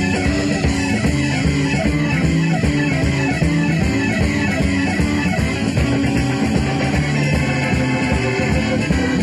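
Live rock band recording: electric guitars and bass guitar playing over a steady beat.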